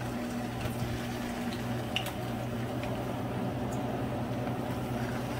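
Plantain strips sizzling in hot oil in a small frying pan, with a few scattered pops over a steady low hum.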